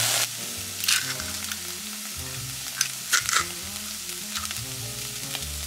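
Diced onions sizzling in a pot with a little oil and a splash of water, a steady frying hiss with a few sharp crackles, over soft background music.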